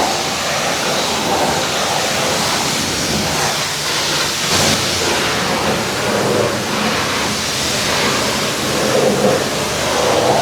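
High-pressure washer spraying water, a steady loud hiss of spray.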